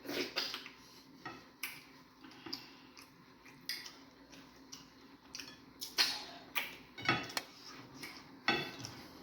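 Close-up eating sounds of fufu with egusi soup: a run of short, irregular wet smacks and clicks, about one or two a second, with light clinks against the dishes.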